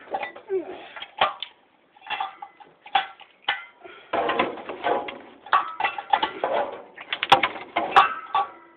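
Ceiling fan being turned over and shifted on a concrete floor: a string of knocks and clatter from its metal housing and blades, with short squeaks in between.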